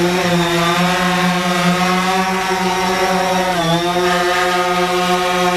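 DJI Phantom quadcopter drone hovering and climbing, its four propellers giving a steady buzzing whine; the pitch dips briefly and recovers about three and a half seconds in.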